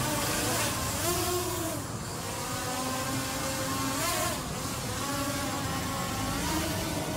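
Multilaser Falcon 4K GPS drone in flight, its propellers buzzing steadily, the pitch swelling up and back down a few times as it is steered.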